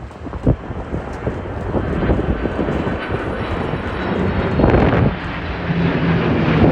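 Jet engine noise of the KC-767 tanker's two turbofans in flight, growing louder about two seconds in. Strong wind buffets the microphone throughout.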